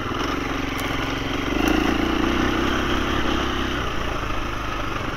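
KTM 350 dirt bike's single-cylinder four-stroke engine running at a steady pace on the trail, growing louder from about a second and a half in and easing back a little before four seconds.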